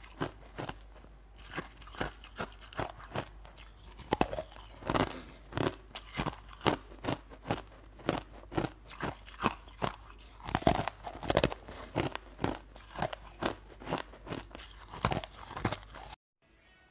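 A person biting and chewing crunchy food close to the microphone: a steady run of crisp crunches, about three a second. It cuts off abruptly just before the end.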